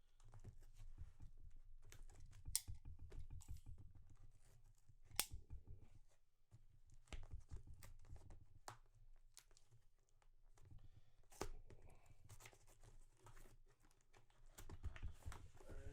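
A knife cutting and tearing packing tape on a cardboard box, with scattered faint clicks and scrapes as the box is handled.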